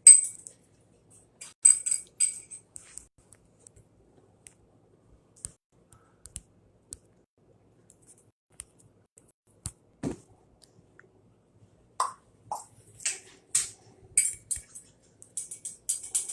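Light jingling in short shakes: one cluster at the start and another from about twelve seconds in, with scattered small clicks and a single knock in between.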